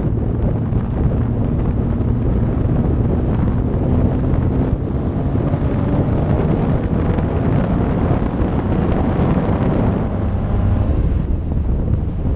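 Kit car driving on the road: heavy wind buffeting on an exposed microphone over a low rumble of engine and tyre noise. The engine note rises slightly in the middle.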